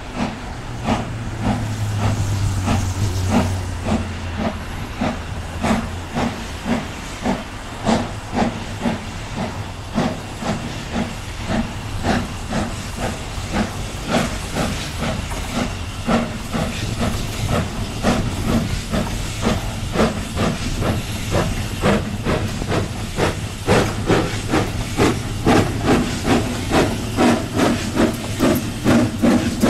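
Austerity 0-6-0 saddle-tank steam locomotive 68013 working a train, chuffing with a steady exhaust beat over a hiss of steam. Near the end the beat runs at about two chuffs a second.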